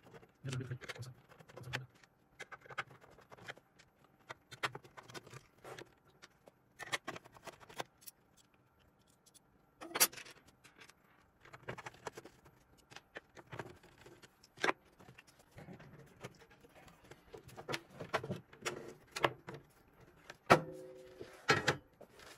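Hand screwdriver work on small machine screws in a metal panel frame: irregular clicks, scrapes and metallic clinks as screws are turned out and small steel parts are set down, with one sharp click about ten seconds in and a run of louder metal knocks near the end as the metal screen frame is handled.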